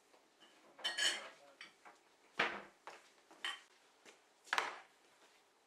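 China mugs and a metal teaspoon being handled on a kitchen worktop: four separate clinks and knocks about a second apart, the loudest about two and a half seconds in.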